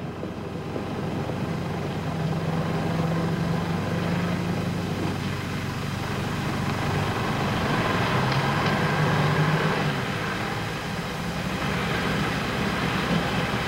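Steady street traffic noise from motor vehicles running, a continuous low rumble.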